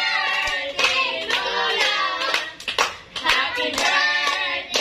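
A small group of women and children singing together and clapping along by hand.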